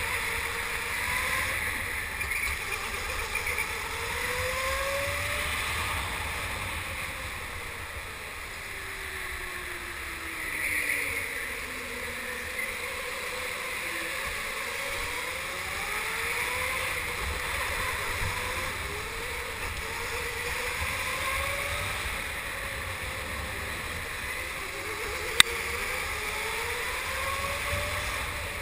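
Go-kart running laps, heard from on board, its motor pitch rising again and again as it speeds up, with one long falling glide about ten seconds in, over a steady low rumble. Near the end comes a single sharp click.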